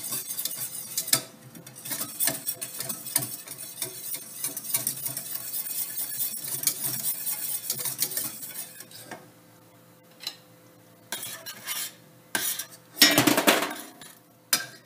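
A wire whisk scrapes and clicks rapidly against a stainless steel saucepan, whisking tempered sour cream into a thick roux gravy, for about nine seconds. After that come a few separate utensil knocks and a louder clatter near the end.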